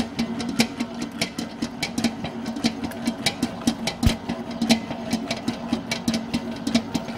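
Commercial planetary dough mixer running on second speed, kneading a wet ciabatta dough: a steady motor hum with a quick, uneven ticking throughout.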